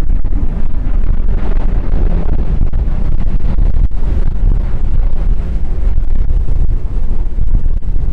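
Wind buffeting the microphone, loud and gusting, over the drone of the Lockheed P-38L Lightning's twin Allison V12 piston engines in flight. The engine sound grows slightly stronger a second or two in.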